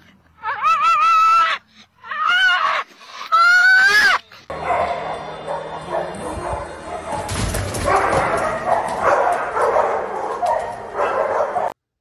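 A small dog barking in three quick bursts of high, wavering barks, then a long, dense wash of noise that cuts off just before the end.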